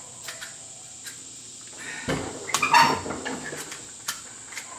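Steel shotgun barrel scraping and knocking against the magazine tube as it is worked back and forth, jammed by a binding washer. A cluster of scrapes and clunks comes about two seconds in, then a single click near the end.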